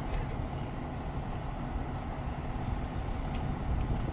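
Steady low rumble of an idling vehicle engine, with a faint click a little over three seconds in.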